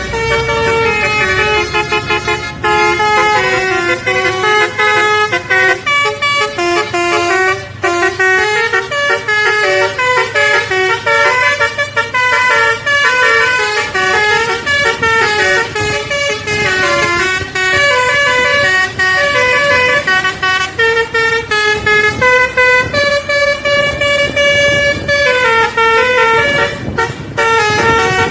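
Tour bus 'telolet' basuri horn, a multi-tone air horn run by a DAV module, playing a fast melody, its notes stepping up and down without pause. A long held chord comes a little after three quarters through, and a few sharp clicks sound near the end.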